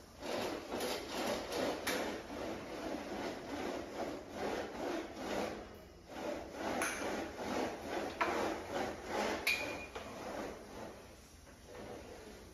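Wooden venetian blind being lowered: the wooden slats rustle and clack against one another in a rapid run of small knocks. The run pauses briefly about six seconds in, then goes on, with a brief high squeak before it dies away.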